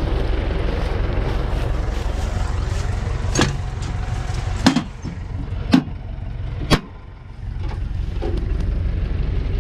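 John Deere 3350 tractor's diesel engine running steadily. Four sharp metal clinks come through the middle, while the rumble briefly drops lower.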